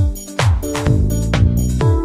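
Electronic background music with a steady beat: a deep kick drum about twice a second under held synth chords and light cymbal ticks.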